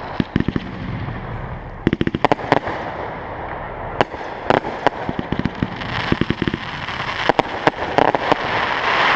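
Aerial fireworks shells bursting overhead, with clusters of sharp reports and rapid crackling coming in bursts every second or two.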